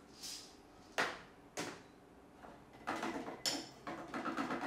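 Small cups and coffee beans being gathered up and put away on a wooden table: a soft rustle, two sharp knocks about half a second apart, then a run of quick small clatters and rattles.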